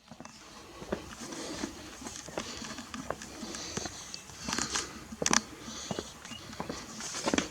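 Irregular crunching footsteps with sharp crackles, the loudest about five seconds in and again near the end.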